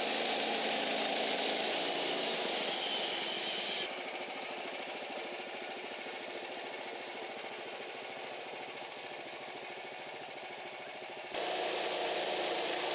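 Sawmill engine running steadily. The sound drops and turns duller about four seconds in, then jumps back to full strength near the end.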